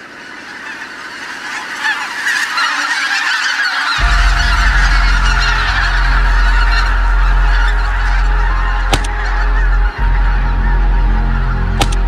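A large flock of wild geese honking, a dense overlapping chorus that fades in and grows louder over the first few seconds. About a third of the way in, a steady low drone comes in underneath, and two sharp clicks stand out, one past the middle and one near the end.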